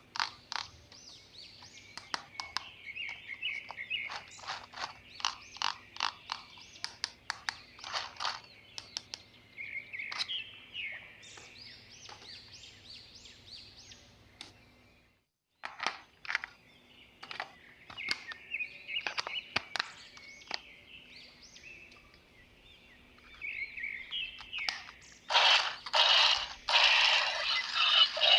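Plastic toy parts and packaging being handled: a run of sharp clicks and light crinkling, turning into louder, denser plastic rustling near the end.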